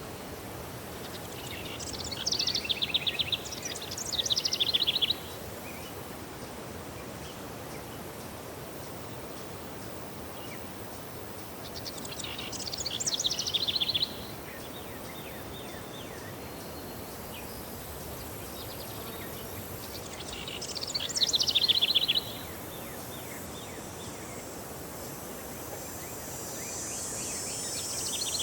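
A songbird sings three phrases of rapid trills, each two to three seconds long and about eight to ten seconds apart, over a steady outdoor background hiss. A high hiss comes in near the end.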